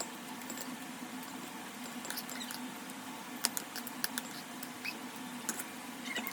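Light, scattered clicks and taps of a spoon against a plate during a meal, a few sharp ones standing out, over a steady background hiss and a faint low hum.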